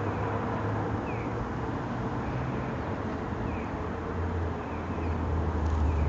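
Outdoor street ambience: a low steady rumble of distant traffic, with short high bird chirps every couple of seconds. A faint steady hum fades away about four seconds in.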